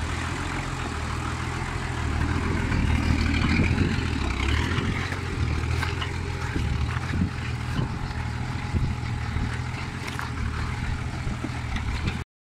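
Nissan Patrol 4x4 engine running as the truck crawls slowly over loose riverbed stones, with short knocks and crunches from the stones under the tyres; the sound cuts off suddenly near the end.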